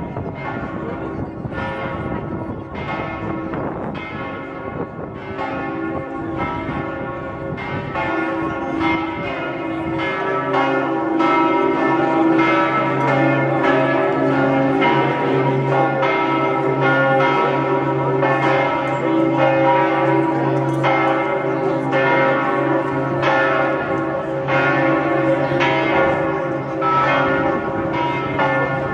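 Bells of St Mark's Campanile ringing, struck over and over about once a second with tones overlapping. About ten seconds in a deep, lower bell joins and the peal grows fuller and louder.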